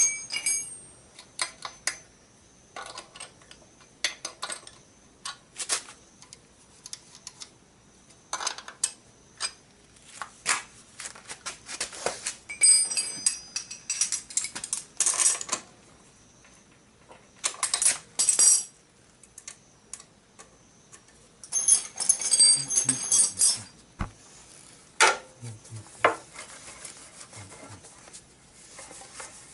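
Irregular metallic clinks, clatters and knocks of hand tools and metal parts being handled and set down, with several clusters of ringing metal.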